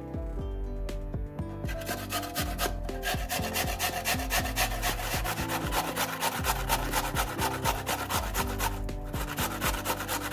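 Raw peeled potato being grated on a metal box grater: quick, rhythmic rasping strokes that start about two seconds in, break off briefly near the end, then pick up again.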